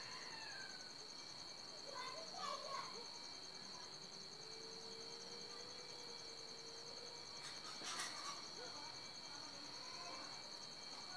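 Faint, steady high-pitched insect trill, with a faint click about eight seconds in.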